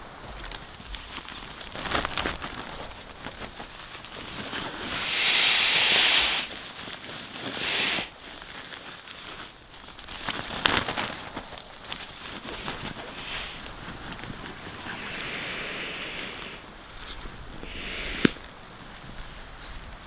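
Therm-a-Rest inflatable sleeping pad and its nylon pump sack being handled, crinkling and rustling, with several hissing rushes of air. The longest rush comes about five seconds in. A few sharp clicks fall in between.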